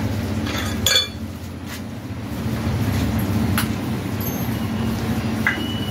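A few sharp metallic clinks as small motorcycle engine parts are handled on a metal fixture, over a steady low hum.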